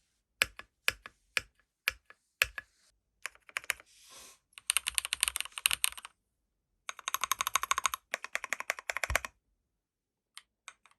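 Typing on a Kiiboom Phantom 81 V2 transparent mechanical keyboard: single keystrokes at first, then two runs of fast clicking keystrokes, and a few last taps near the end.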